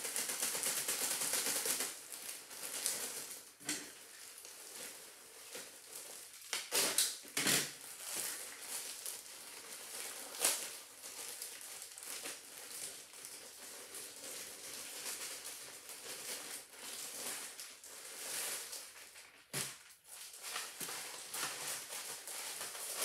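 Plastic poly mailer bags rustling and crinkling as they are pulled open and handled, louder in the first two seconds, with a few sharp crackles of the plastic.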